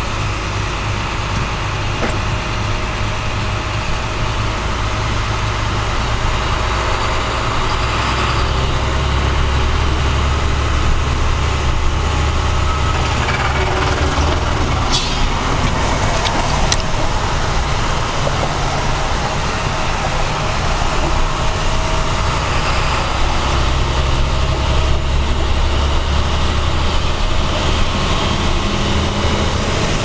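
Inside a large truck's cab while driving on wet pavement: a steady low engine drone under tyre and road noise. A couple of brief clicks come about halfway through.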